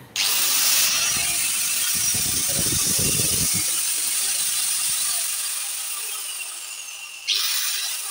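Golden Bullet AG4 1100 W angle grinder, with no disc fitted, switched on and running free at full speed with a steady high whine. It sags slightly, then surges back up suddenly about seven seconds in.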